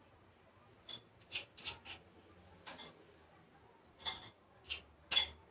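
Small metal spoon clinking against a ceramic plate while scooping brigadeiro mixture: about eight short, ringing clinks at irregular intervals, the loudest near the end.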